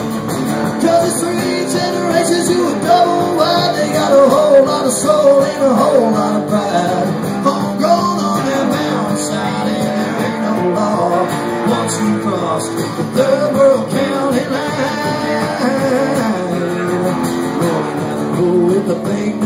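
Instrumental break of a small live country band: acoustic guitar strumming and a plucked upright bass under a lead line with sliding, gliding notes from a lap steel guitar.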